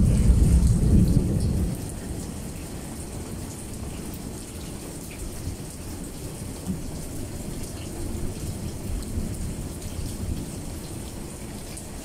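A loud low rumble of thunder fades out in the first couple of seconds. Then steady rain falls, with scattered drops ticking.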